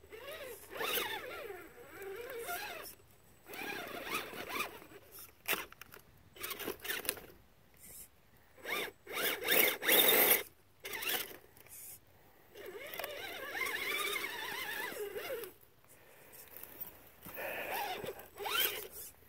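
Redcat Everest Gen7 Pro RC crawler's electric motor and geared drivetrain whining in on-and-off bursts as the throttle is worked, the pitch wavering up and down, with short pauses between.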